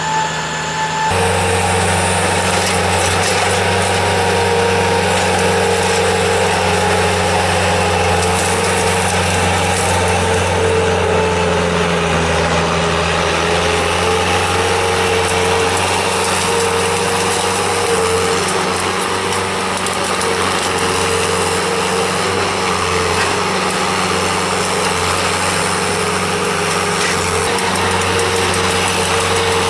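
An engine running steadily at a constant speed, with an abrupt change in its sound about a second in.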